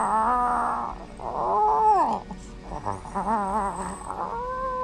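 Cat yowling and growling: a series of drawn-out calls with a wavering pitch, one rising and then falling about two seconds in.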